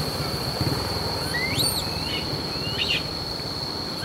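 Steady high-pitched insect drone of rainforest crickets or cicadas, with short rising bird calls about a second and a half in and again near three seconds. A low engine rumble, like a vehicle idling, runs underneath.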